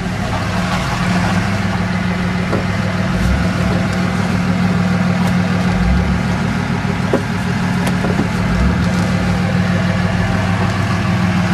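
Diesel pickup truck idling steadily close by, a continuous low engine hum.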